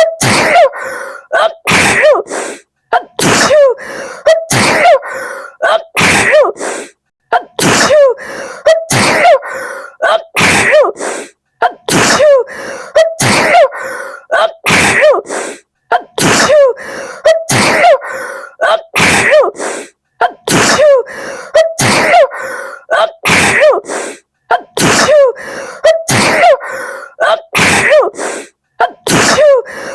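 A woman sneezing over and over in a sneezing fit, about one sneeze a second, each with a quick gasping intake before it. The same short run of sneezes loops again and again.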